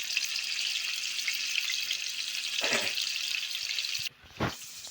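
Garlic sizzling in hot oil in a frying pan, a steady hiss that cuts off abruptly about four seconds in, followed by a short thud.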